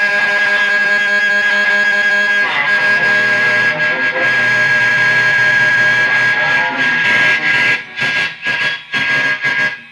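Improvised amplified guitar through distortion effects: a dense sustained drone with a steady high tone on top. About eight seconds in it breaks into choppy, stop-start fragments.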